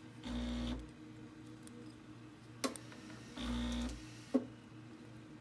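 A snap ring being pressed by hand into the plastic head of a diaphragm vacuum pump: two sharp clicks, one just past halfway and one about four seconds in. Two short, steady hums of about half a second each come at the start and around three and a half seconds in.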